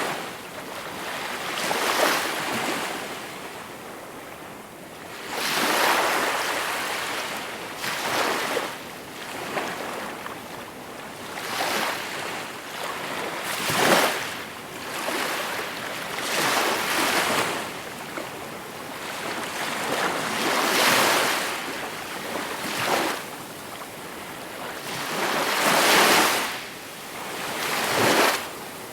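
Gentle sea waves breaking and washing up the shore, one after another. Each wave is a rush of hiss that swells and dies away every few seconds.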